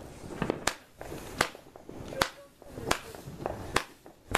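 Multi-shot consumer firework firing a string of sharp pops, about one every three-quarters of a second, six in all.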